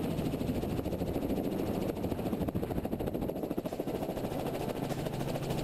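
Robinson R44 helicopter running steadily: rotor and engine noise with a fast, even pulsing beat.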